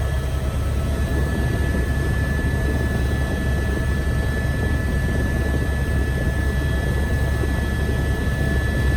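Helicopter in flight heard from inside the cabin: a steady deep drone with a thin, steady high whine over it.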